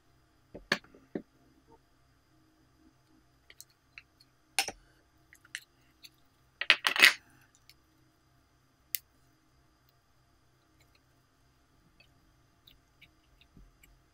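Hands handling glitter slime over a glass baking dish, making scattered sharp clicks and clinks. The loudest cluster comes about seven seconds in.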